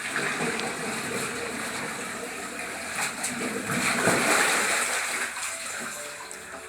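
Water sloshing and splashing as a person is dipped under and raised out of the baptism water, swelling loudest about two-thirds of the way through and easing off near the end.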